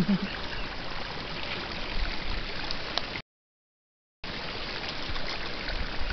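Steaming hot-spring water boiling and bubbling: a steady rushing, gurgling sound with faint pops. The sound drops out completely for about a second just past the middle.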